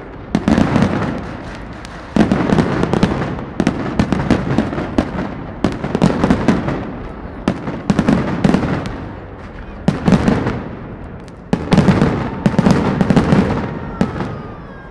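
Professional aerial firework shells bursting one after another, a sharp bang every couple of seconds, each followed by dense crackling that fades away.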